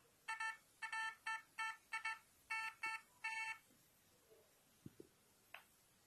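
Homemade TGSL VLF metal detector sounding a string of eight short, buzzy beeps over about three seconds, its target signal during an air test. A few faint clicks follow.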